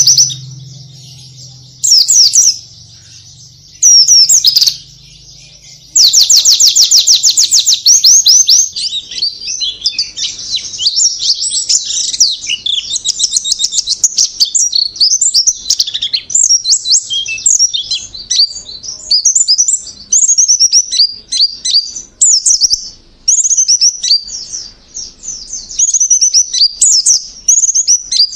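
White-eye (pleci) song: a few short high twittering phrases in the first seconds, a fast rapid trill about six seconds in, then an unbroken run of high, varied chirps and warbles.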